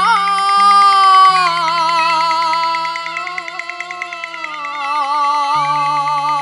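Male Cantonese opera singer holding a long, drawn-out sung phrase with vibrato, stepping down in pitch twice, over instrumental accompaniment.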